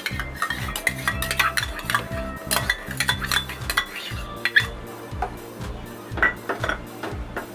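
Steel spatula clinking and scraping against a stainless steel pan while stirring thick mango custard, a run of sharp clinks that ring briefly.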